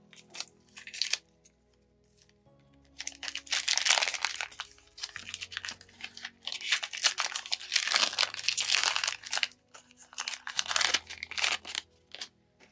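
Pokémon card packaging crinkling and tearing as it is opened, in irregular bursts from about three seconds in, with quiet background music underneath.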